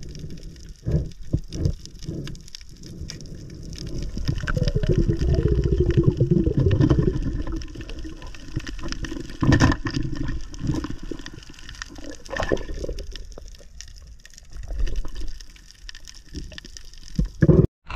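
Muffled underwater water noise, uneven sloshing and gurgling with scattered knocks, as heard by a camera under the water.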